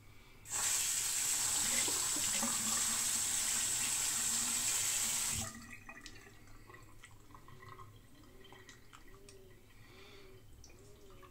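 Bathroom tap running into a sink for about five seconds, then shut off suddenly, followed by faint small clicks and drips.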